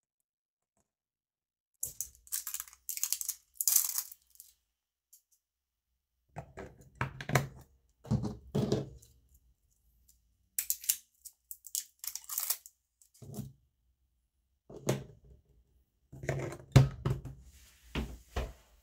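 AAA batteries being fitted into the plastic battery compartment of a Casio fx-CG50 graphing calculator: a string of knocks and clicks as each cell is pressed in against the spring contacts, with a few brief scraping rustles in between. The loudest knock comes near the end.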